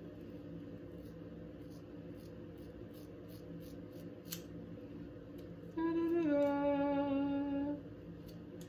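Scissors snipping through a fringe of hair in a run of small clicks, with a sharper snip about four seconds in. Then a woman hums for about two seconds, her pitch stepping down once.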